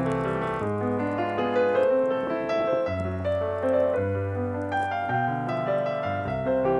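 Background piano music, a steady run of notes with sustained bass notes underneath.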